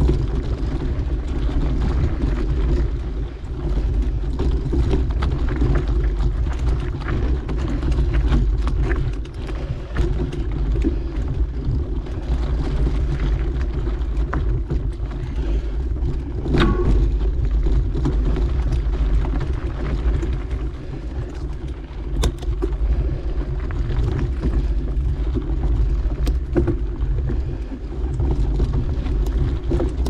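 Steady low rumble of wind buffeting the microphone and mountain bike tyres rolling over a dirt trail during a ride, with scattered clicks and rattles from the bike.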